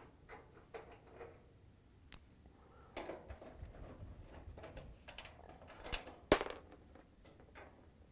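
Faint metal-on-metal scraping and light clicks as a nut driver backs a screw out of a steel top-panel bracket on a dryer cabinet and the bracket is pulled free, with one sharp metallic click about six seconds in.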